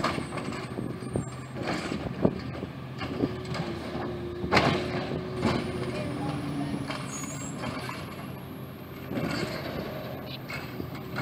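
CNG refuse truck's engine running as the truck creeps forward and stops, with air-brake hisses and several sharp knocks, the loudest about four and a half seconds in.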